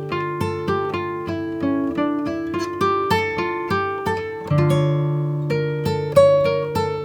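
Music: an acoustic guitar picking single notes over held bass notes, about two to three plucks a second, each note ringing and dying away.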